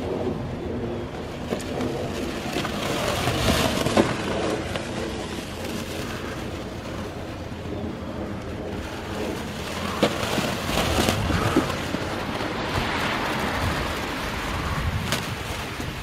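Wind rumbling on the microphone, with scattered crackles and rustles of plastic wrap being stretched around a car.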